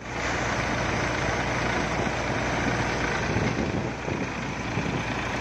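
Heavy machinery running steadily: a constant low engine-like hum under a dense mechanical clatter and hiss.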